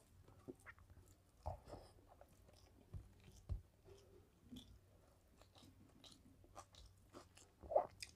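A person eating rice and mutton curry by hand: faint wet chewing and mouth sounds with small scattered clicks, and a louder bite as a handful goes into the mouth near the end.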